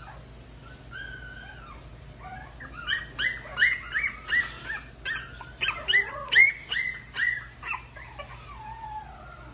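Puppy yipping: a quick run of a dozen or so high, sharp yips, about three a second, after a faint whimper, with a lower whine trailing off near the end.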